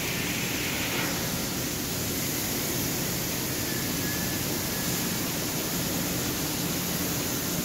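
Angle grinder grinding a steel frame: a steady grinding hiss, with a high whine in the first second that then drops away.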